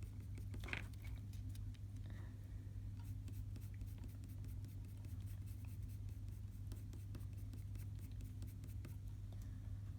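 Coloured pencil scratching across paper in many quick, short strokes while shading fur, over a steady low background hum.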